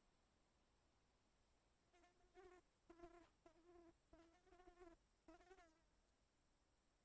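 Faint buzzing of a flying insect, coming in about five short bursts over a few seconds, from a sound-effect track.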